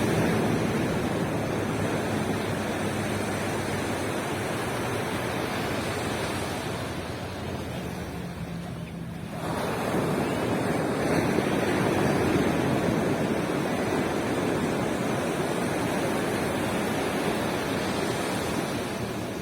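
Ocean surf washing onto the beach, a steady rush of breaking waves that eases off about seven seconds in and swells back as another wave breaks around ten seconds in.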